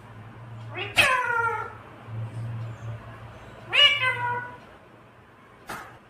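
Pet ringneck parakeet giving two meow-like calls, each falling in pitch and under a second long, over a low steady hum.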